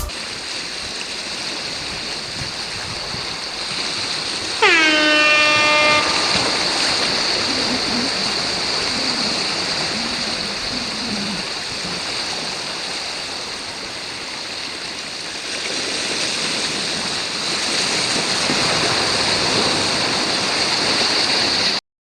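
Steady rushing noise of sea surf, with a single horn-like blast about four and a half seconds in that dips briefly in pitch and then holds for a little over a second.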